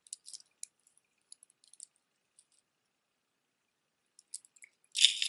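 Costume jewelry being handled: metal beads and stone chips clicking and clinking against each other in scattered small clicks, with a pause in the middle and a short louder rattle near the end.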